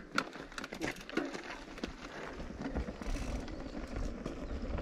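Mountain bikes rolling off over a gravel trail: a run of sharp clicks and crunches in the first second or so, then a steady low rumble of wind on the microphone from about halfway through.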